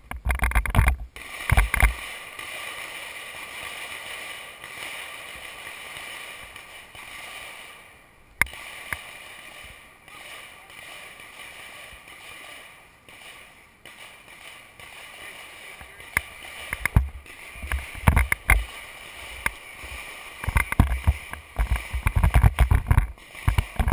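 Wind buffeting the camera's microphone in low, rumbling gusts, heavy about the first two seconds and again over the last eight, with a steady hiss between and a few sharp clicks.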